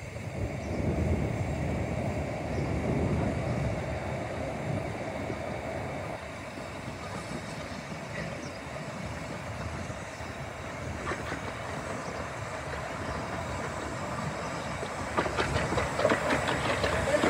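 A 15-inch-gauge steam locomotive and its coaches running into the station, with a steady low rumble. Near the end the wheels click over rail joints and pointwork, getting louder as the train draws alongside.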